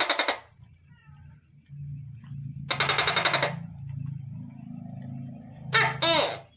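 Tokay gecko calling at night: loud pulsed croaks about three seconds apart, then a two-part "to-kek" call with a falling pitch near the end. A steady high insect chirring and a low hum run underneath.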